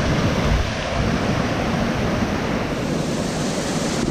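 A rocky mountain stream rushing and splashing over boulders in a small cascade, a steady noise, with some wind on the microphone.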